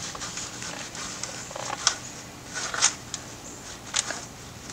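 Oil filter wrench tightening a newly fitted spin-on oil filter, with three short clicks and scrapes about a second apart.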